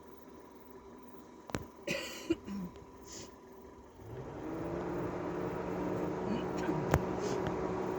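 A few faint clicks and short noises, then about halfway through an engine starts up and runs steadily with a low hum.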